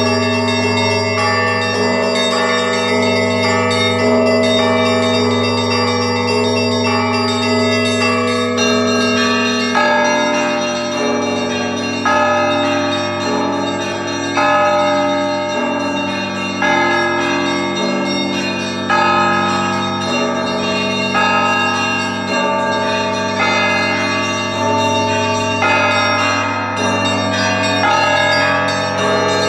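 Russian Orthodox church bells ringing a trezvon, the festive peal before the Liturgy: several small bells chime quickly over the deep hum of a large bell. About nine seconds in the pattern changes, and heavier strokes then come about every two seconds.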